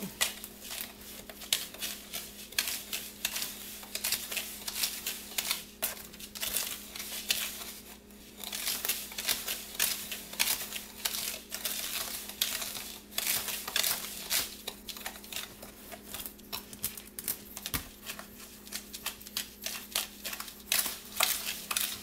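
A metal spoon stirring and scraping a dry mix of borax, washing soda and Epsom salt in a tub: a continuous, irregular run of gritty scratching and small clicks.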